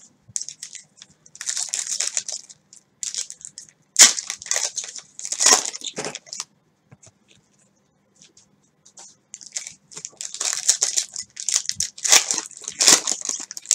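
Cellophane wrappers of trading-card packs crinkling and tearing as the packs are opened, with cards being handled. It comes in irregular rustling bursts, pauses for about three seconds midway, then turns busier near the end.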